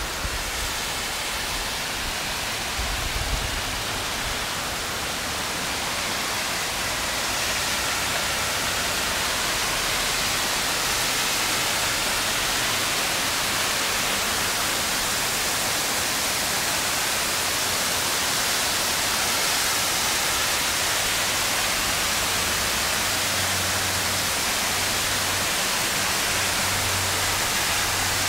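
Heavy rain falling steadily, an even dense hiss that grows a little louder after about seven seconds.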